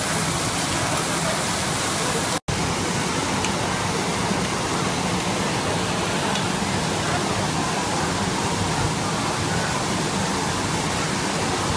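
Steady sizzling hiss of meat and chicken frying on a teppanyaki steel griddle. The sound drops out for a split second about two and a half seconds in.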